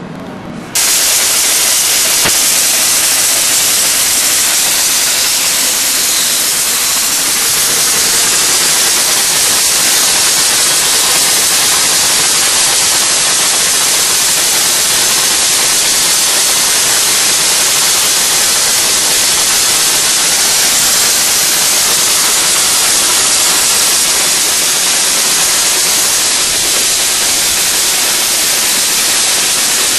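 Dry ice blaster nozzle blasting compressed air and dry ice pellets at a floor to strip off chewing gum: a loud, steady hiss that starts abruptly about a second in.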